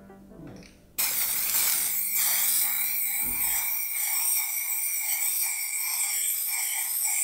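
Aerosol spray-paint can spraying in a continuous hiss with a thin steady whistle in it. It starts abruptly about a second in.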